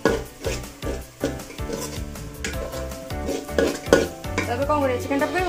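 A metal spoon stirring and scraping food in a metal pot over a wood fire, clinking irregularly against the pot's sides, with frying sizzle underneath.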